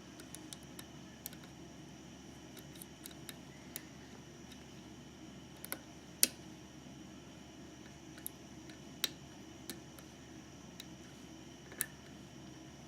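Scattered small metallic clicks and ticks of a lock pick working the pins of a GeGe eAP2000 five-pin lock under tension, about half a dozen, the sharpest about six seconds in.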